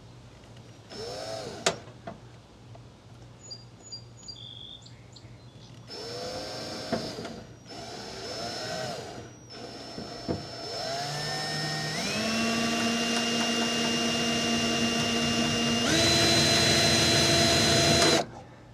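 Power drill boring a small hole with a drill bit. First come a few short trigger pulls, the motor spinning up and winding down. Then a longer run of about eight seconds, its pitch stepping up twice before it cuts off suddenly.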